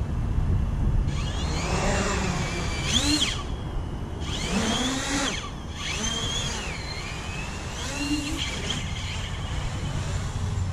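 X-Class FPV quadcopter's four Tornado T7 4215 brushless motors and propellers whining as it lifts off and hovers, the pitch rising and falling again and again as the throttle changes, over a steady low rumble.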